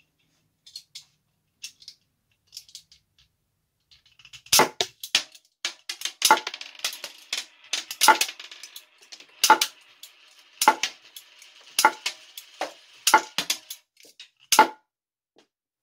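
3D-printed all-plastic disc shooter firing repeatedly: a few light clicks while it is loaded, then about nine sharp snaps, roughly one a second or so, starting about four and a half seconds in, each as the printed plastic spring drives the slider forward and launches a disc. Lighter clicks and a faint clatter come between the shots.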